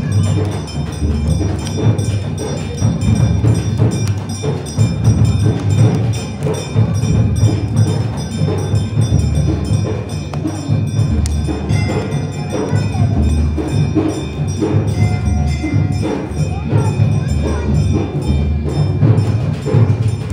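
Hindu temple aarti: bells ringing continuously over a steady beating of drums and percussion.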